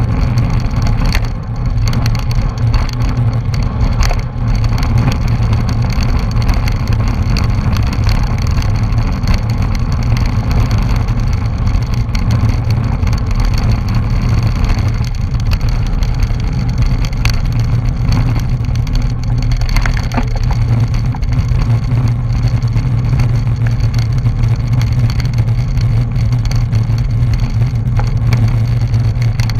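Wind buffeting the microphone of a bike-mounted action camera at race speed, a loud, steady low rumble mixed with road-bike tyre and drivetrain noise.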